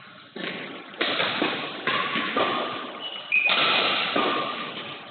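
Badminton rally: rackets striking the shuttlecock, about four sharp hits a second or so apart, each ringing on in the echo of a large hall, with a brief high squeak about three seconds in.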